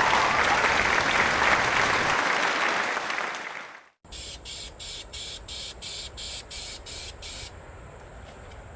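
Applause fading out over the first few seconds, then after a brief silence a rhythmic high-pitched insect chirping, about three pulses a second, that gives way to a fainter steady insect hum.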